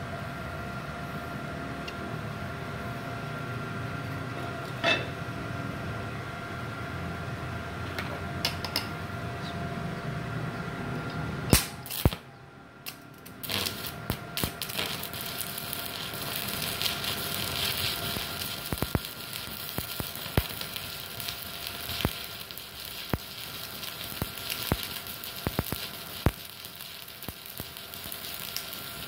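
A steady hum, then a little under halfway through the stick-welding arc is struck with a 3.2 mm electrode at about 115 amps on an IGBT inverter welder and burns with a continuous sputtering crackle and snaps.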